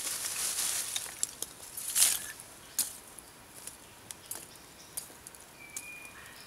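Lumps of charcoal rustling and clinking as handfuls are dropped into the top of a small clay furnace. There is a louder clatter about two seconds in, and scattered light clicks after it.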